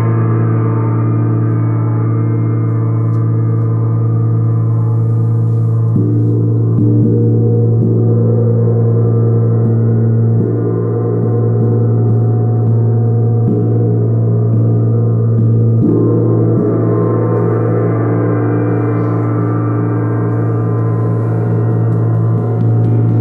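Tuned moon gong played with felt-headed mallets: a steady, sustained wash of tone with a strong deep fundamental and many overtones. It is re-struck softly several times between about six and seventeen seconds in.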